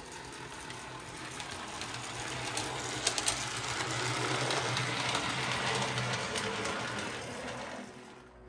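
OO gauge model tube train with a Tenshodo motor bogie running along the layout track: a small electric motor's whir and hum with wheels rattling on the rails. It grows louder and fades again as the train passes, with a few sharp clicks about three seconds in. It runs a little rough on a motor that needs oil and running in.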